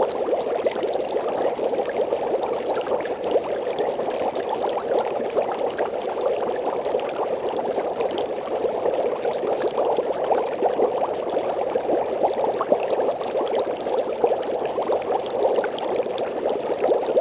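Water bubbling steadily and without pause: a dense stream of small bubbles popping, from a sound-effects library recording.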